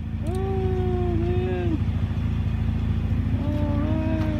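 A car engine idling with a steady low rumble. Over it, a voice holds two drawn-out notes: one lasting over a second near the start, and a shorter one near the end.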